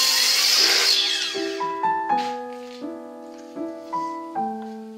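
Background piano music, note after note, runs throughout. Over the first second a loud hiss fades away under it: the Evolution R255 SMS miter saw's blade finishing a cut in a small wooden part and spinning down.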